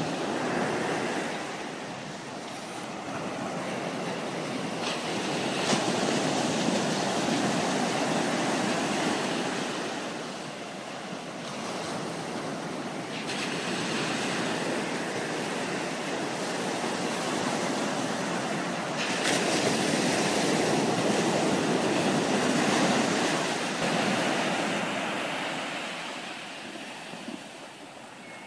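Ocean surf breaking and washing up onto a sandy beach, its rush swelling and easing several times.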